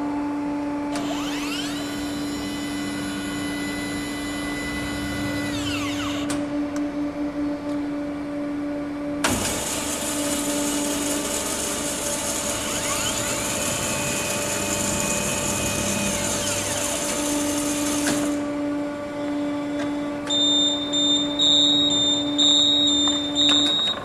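MEP Shark 332 CNC automatic band saw running its automatic cycle: a steady hum with motor whines that rise, hold and fall away twice. From about 20 s to the end a high-pitched whine starts and stops repeatedly.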